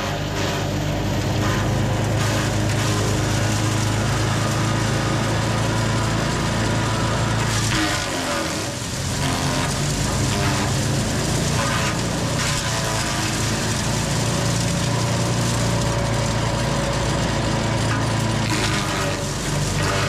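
ECHO Bear Cat SC3306 chipper shredder's gas engine running steadily at speed while limbs are fed into it, with bursts of crunching and cracking as the branches are chipped.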